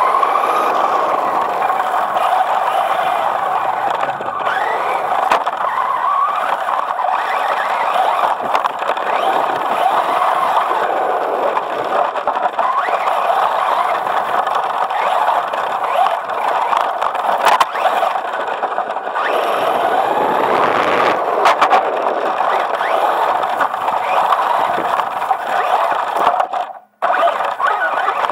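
Traxxas Stampede 4x4 electric RC truck driving, heard close up from on board: the motor and gears whine, the pitch rising and falling with the throttle, over tyre and rolling noise. The sound cuts out for a moment near the end.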